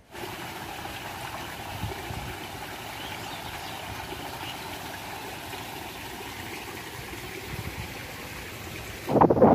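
Shallow floodwater running steadily across a footpath, a continuous rushing trickle. Near the end it is cut off by loud wind buffeting the microphone.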